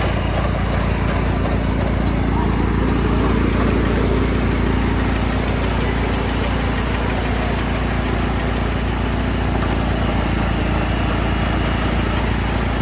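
Diesel engine of a Yanmar rice combine harvester running steadily, with a constant mechanical hum.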